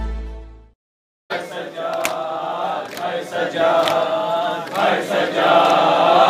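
A short news intro jingle fades out, and after half a second of silence a crowd of men starts a rhythmic mourning chant (noha) in unison, with regular slaps of chest-beating (matam) about once a second.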